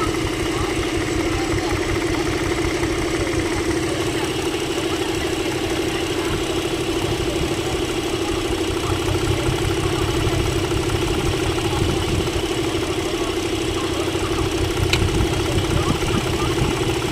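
Chevrolet engine idling with a misfire, a steady run over an uneven low pulsing.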